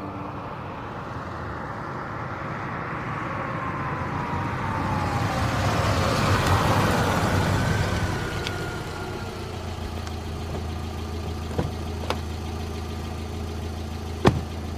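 Road-vehicle sound effect: a motor vehicle grows louder and passes with its pitch falling, then settles into a steady engine idle. A few sharp clicks sound over the idle, the loudest near the end.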